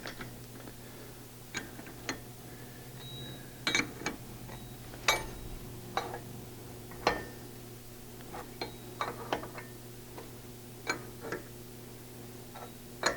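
Irregular sharp metallic clicks and clinks, one every half second to a second or so, from a wrench working the turnbuckle of a steel pipe alignment clamp. A steady low hum runs underneath.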